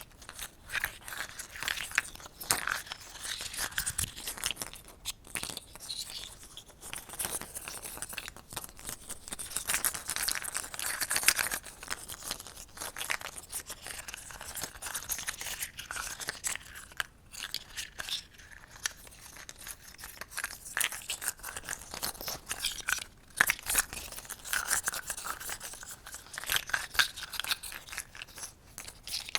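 Close-miked ASMR handling sounds: dense, irregular crackling and scratching, with short lulls.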